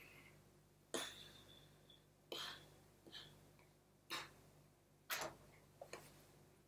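About five soft slaps and swishes of hands and clothing as a person signs, each starting sharply and fading within half a second, in an otherwise quiet room.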